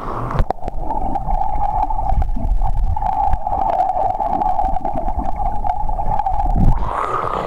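Muffled underwater sound of a swimming pool picked up by a submerged camera: a steady hum with low rumbling and small bubbling ticks as a swimmer breathes out through her nose. The camera plunges under about half a second in and comes back up near the end.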